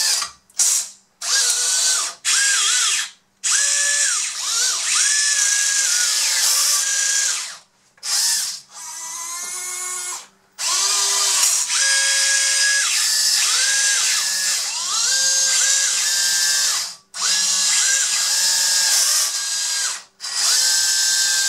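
Small high-speed 12 V electric motors and metal gearboxes of a Huina 580 metal RC excavator whining as the boom, arm and bucket are driven. The motors run in bursts of one to several seconds with short breaks, the pitch gliding up as each run starts and down as it stops.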